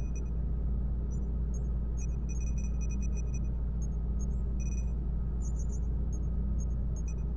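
Science-fiction space-dock and control-room ambience: a steady deep hum, with scattered clusters of short, high electronic beeps and chirps.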